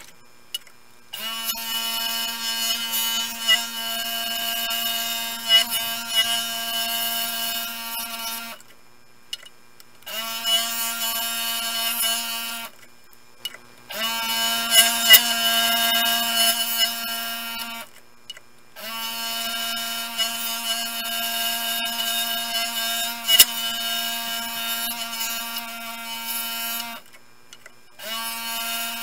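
Scroll saw running and cutting thin wood: a steady motor hum with a fine sawing rasp. It comes in several runs of a few seconds each with short breaks between them, starting about a second in.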